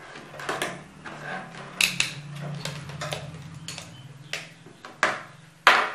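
A mobile phone battery and multimeter probes handled and set down on a tabletop: a series of light clicks and taps, about six of them, the loudest near the end, over a steady low hum.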